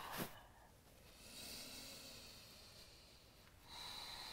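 A woman breathing faintly: two long, slow breaths in and out while holding a yoga pose.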